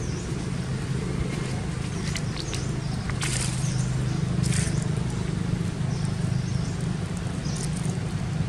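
Outdoor ambience: a steady low rumble, with short high chirps every couple of seconds and two brief rustles about three and four and a half seconds in.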